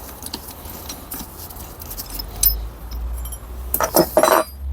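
Metal tools and parts clinking and rattling as they are handled, with a few sharp ringing clinks near the end.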